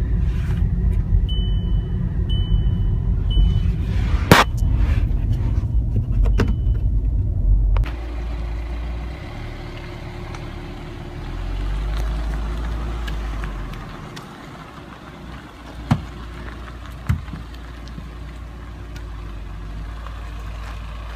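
Road and engine rumble inside a moving Volkswagen sedan's cabin, with three short high beeps and a sharp click a few seconds in. About eight seconds in it cuts to the car's quieter steady running heard from outside on the road, which swells briefly, with two sharp knocks a second apart later on.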